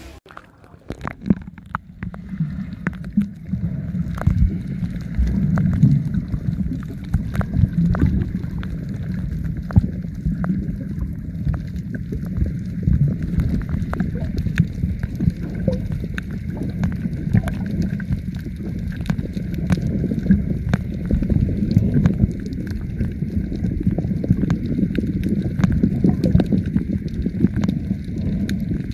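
Muffled underwater sound from a camera held below the surface: a dense, low rush and gurgle of water with many small clicks and knocks, rising after a near-quiet first second.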